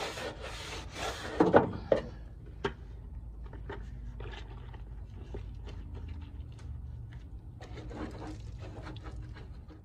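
Stiff bristle brush scrubbing grease and grime off a car's undercoated steel transmission tunnel, in quick even strokes for the first second or so, then a few knocks. After that comes lighter, scattered wiping and clicking against the metal, over a steady low rumble.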